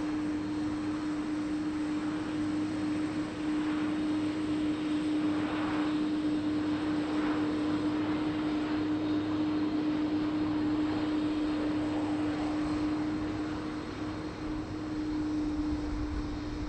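Jet airliner engines running at a steady level: an even rushing noise under one steady hum, neither building nor fading.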